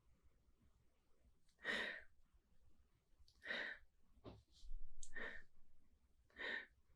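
A man sniffing a glass of beer, four short sniffs spaced about a second and a half apart.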